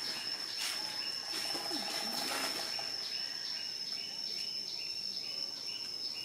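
Outdoor natural ambience: a steady, high-pitched insect drone with short chirps repeating a few times a second.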